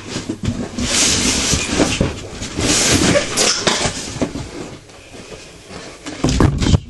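Cardboard box and packaging being handled and pulled open: scraping and rustling with knocks, and a few heavy thumps near the end.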